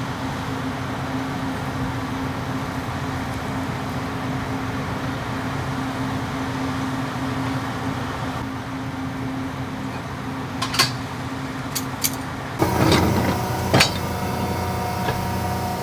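Tractor engine running steadily, with a few sharp metallic clicks and knocks in the last few seconds as the engine sound changes.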